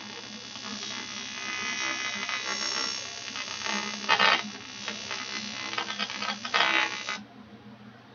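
AC TIG welding arc on 6061 aluminium buzzing steadily as a filler pass is laid into a hole, with louder swells about four and six and a half seconds in. The arc cuts off about seven seconds in.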